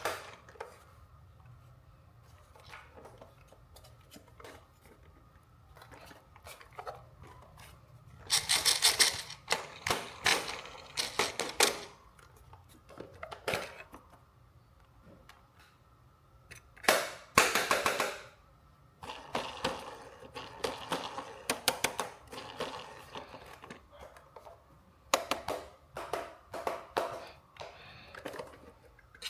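Hands handling toy RC car packaging and parts: several bursts of rustling and sharp clicks with quiet gaps between, the loudest about nine seconds in and again near the middle.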